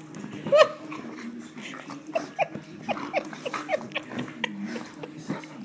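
Labradors playing, giving a sharp yelp about half a second in, then a run of short yips and whines, each falling in pitch.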